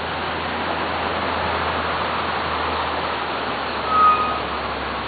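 Steady road-traffic noise with a low hum underneath, and one short high beep about four seconds in that is the loudest sound.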